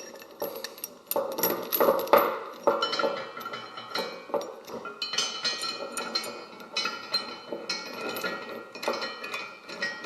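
Steel anchor chain links clinking and rattling against each other and against a shackle as it is fitted to one end of the chain. The clinks come in quick, uneven runs.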